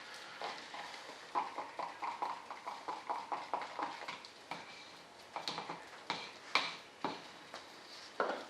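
Stir stick knocking and scraping against the sides of a mixing cup as tooling resin and hardener are stirred together: a quick, uneven run of short clicks and taps, a few a second.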